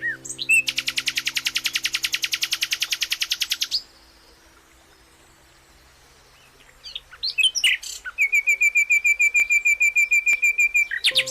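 Small songbird singing: a fast, dry buzzing trill for about three seconds, then after a pause a few separate chirps and a second rapid trill of evenly repeated notes lasting about three seconds. Faint steady low tones sit under the first half.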